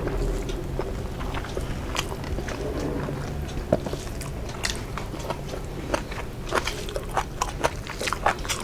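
Close-miked chewing of food: a steady run of quick wet mouth clicks and smacks, growing busier near the end.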